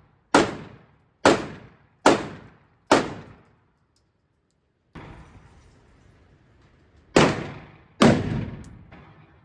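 Gunshots: four in quick succession, a little under a second apart, then after a short break two more, each a sharp crack with a decaying echo tail.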